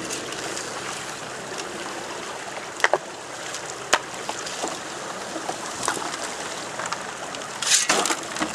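Steady rush of shallow creek water, with a few sharp knocks about three and four seconds in. Near the end, a louder gush of water and gravel pours out of a 3-inch hand suction tube ("super sucker") emptied into the head of a sluice box.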